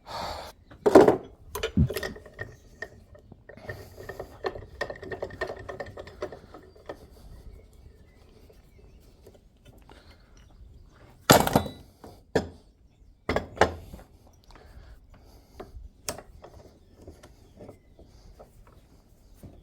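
Metal parts and tools knocking and clinking as they are handled, with scattered sharp strikes, the loudest about a second in and again around eleven to fourteen seconds in.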